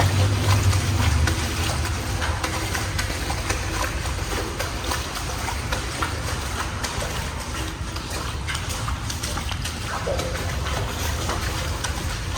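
Footsteps splashing through shallow water in a tunnel, an irregular run of small splashes and scuffs.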